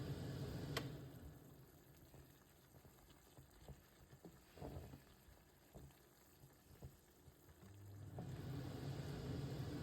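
Pan of beef mince giniling simmering, with faint scattered bubbling pops. A steady low hum stops with a click about a second in and comes back near the end.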